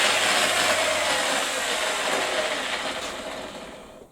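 Power saw blade cutting through aluminium, a loud rasping whine, then the motor running down and fading out near the end.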